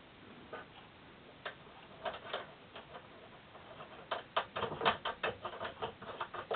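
Light, irregular metallic clicks and taps of nuts and bolts being handled and fitted on the enlarger's column bracket. Sparse at first, then quick runs of clicks from about four seconds in.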